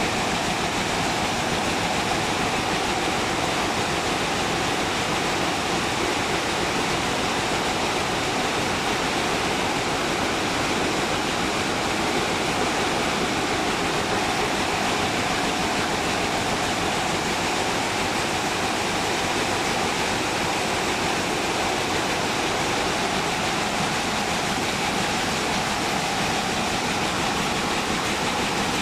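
Picanol weaving loom running at speed: a loud, dense, steady machine noise that does not change.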